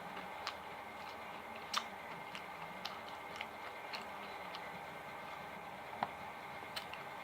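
Chewing with scattered sharp wet mouth clicks, about a dozen irregular ones, over a steady faint hum.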